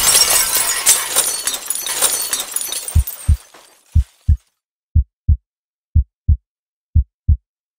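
The tail of a car crash: breaking glass and debris fading out over about three seconds. Then a heartbeat sound effect of low double thumps, lub-dub, about once a second, five beats.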